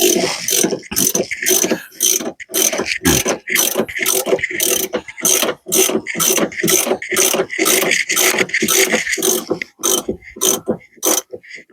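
Ratchet wrench clicking in quick repeated strokes, about two to three a second, as nuts on the radius rod bush plate are worked loose.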